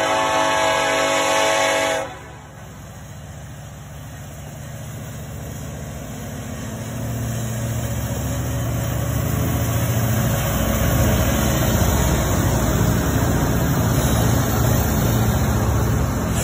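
Diesel locomotive air horn sounding a steady multi-note chord, cutting off sharply about two seconds in. Then the low rumble of the lead BNSF diesel locomotives builds as they pass, giving way to the steady rumble of loaded coal hopper cars rolling by.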